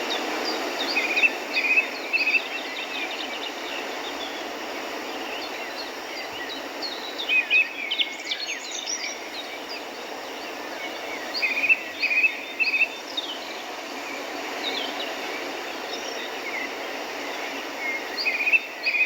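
Birds calling in short runs of three or four quick notes, recurring every several seconds, over a steady rushing background noise.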